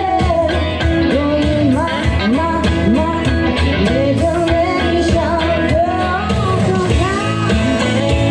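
Live song: a woman singing a melody into a microphone, accompanied by a strummed electric guitar through a small amp.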